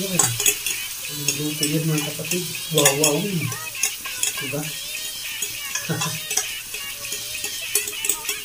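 Hot oil sizzling in a frying pan while a metal fork scrapes and clicks against a ceramic plate, pushing fried eggplant off it into the pan.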